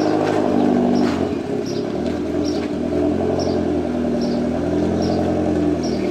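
Vehicle engine idling steadily, with a faint regular tick about every second.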